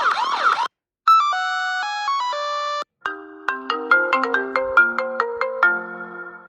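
Mobile phone ringtones cut one after another. A brief warbling trill comes first, then a short tune of held electronic tones stepping up and down in pitch. About three seconds in, a repeating melody of struck, chime-like notes begins.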